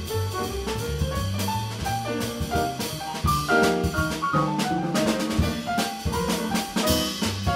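Jazz piano trio playing live: grand piano chords and runs over a walking upright double bass, with drums and cymbals keeping time.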